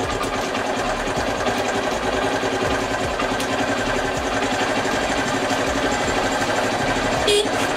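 TVS Sport motorcycle's single-cylinder engine idling steadily with no battery fitted. Near the end the electric horn gives a short honk; without a battery the horn does not sound properly at idle.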